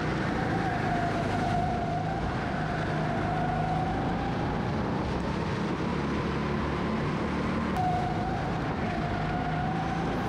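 Go-kart engine running at race pace, its note slowly sagging and climbing as the kart goes through corners, with a quick rise in pitch about eight seconds in as it accelerates again.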